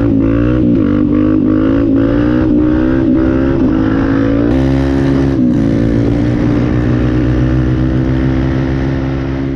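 Dirt bike engine running at riding speed, heard close from the bike itself, its pitch dipping briefly a few times and then holding steady before it begins to fade near the end.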